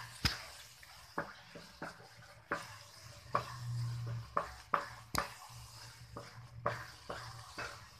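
A spatula stirring and scraping a thick carrot, sugar and khoya barfi mixture in a cooking pan on the stove, with irregular sharp knocks of the spatula against the pan about once or twice a second.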